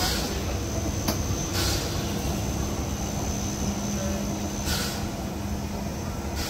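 Steam locomotive 378.78 running slowly with its coaches during shunting: a steady low rumble, with a few short bursts of hiss and one sharp click about a second in.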